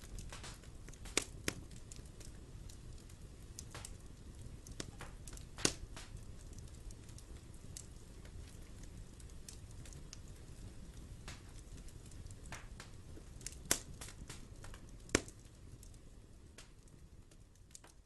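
Wood fire crackling in a fireplace: a low steady burn with irregular sharp pops, a few of them much louder, fading out near the end.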